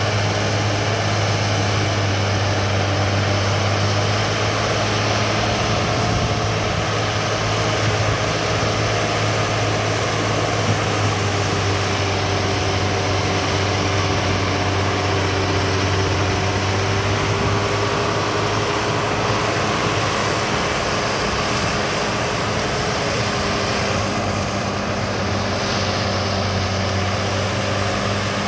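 John Deere 7800 tractor's six-cylinder turbo diesel pulling a field cultivator through heavy tilled soil, running steadily under load with a deep drone.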